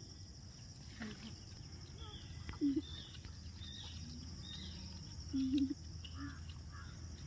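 Quiet outdoor rural ambience: a steady high insect drone with scattered faint bird chirps. Two brief low calls stand out, about two and a half and five and a half seconds in.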